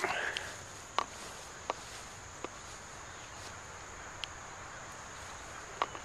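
Steady high-pitched insect drone, with a brief rustle right at the start and a handful of light clicks scattered through.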